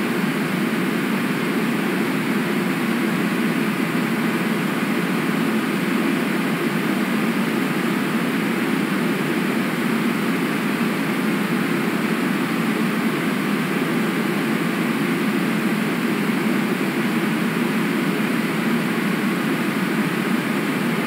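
Steady rushing of river water, even and unbroken.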